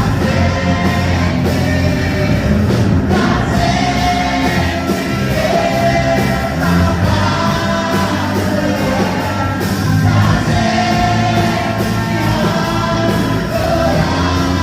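Worship song: voices singing long held notes over a band with bass and drums keeping a steady beat.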